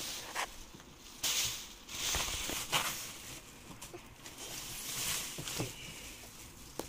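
Protective plastic wrap rustling and crinkling in short bursts as it is pulled off the back of a flat-screen TV, with a few light handling knocks.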